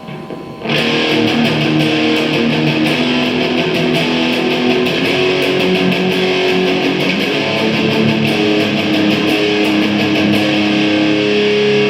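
Electric guitar playing a simple riff through a Marshall amp and speaker cabinet, picked up raw by a Panasonic GH2 camera's built-in microphone in a big room with no sound treatment. It starts less than a second in and plays on without a break.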